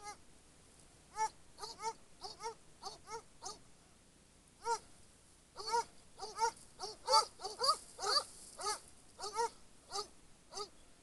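Hunting dogs baying in the scrub: a string of short, arched yelps, irregularly spaced and coming faster and overlapping in the second half.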